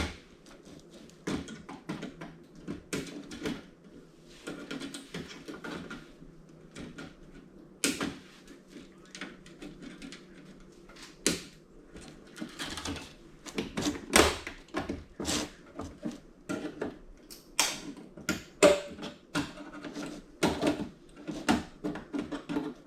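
Irregular sharp clicks, snaps and knocks from a hand tool cutting the plastic pieces that hold a TV's main circuit board, with the board and parts being handled. The clicks come more often in the second half.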